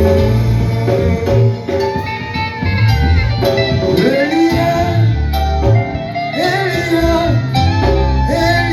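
Gospel worship music: singing over instrumental backing with a bass line that moves from note to note.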